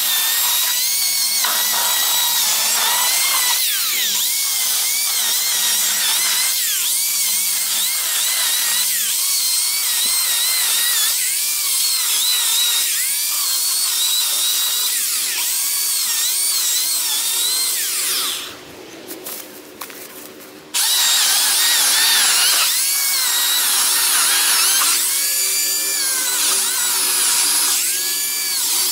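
Zombi 13-amp corded electric chainsaw with an Oregon bar and chain cutting through dead pine logs. Its high motor whine dips in pitch and recovers each time the chain bites into the wood. About 18 seconds in the trigger is released and the motor winds down, then it starts again two seconds later for more cutting.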